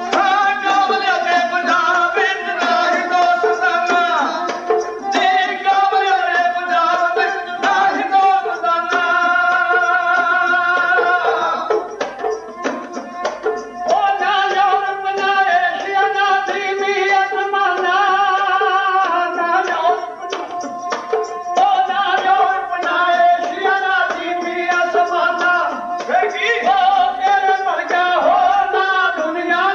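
Punjabi dhadi devotional ballad: singing accompanied by the dhadd hourglass hand drum and sarangi, with a short lull about twelve seconds in.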